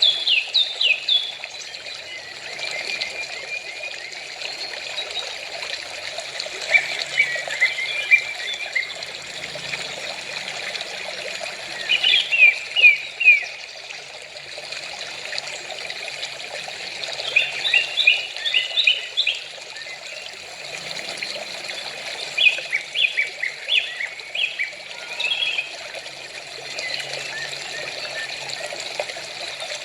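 Small birds chirping in short clusters of quick, falling notes every few seconds, over a steady trickle of running water.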